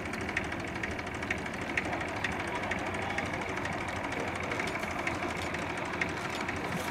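Bristol F.2B Fighter biplane in flight, its Rolls-Royce Falcon V12 aero engine and propeller running steadily as the aircraft comes towards the listener.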